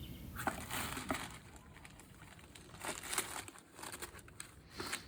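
Crinkly paper being crinkled in several short bursts of crackling, the loudest about a second in and around three seconds in.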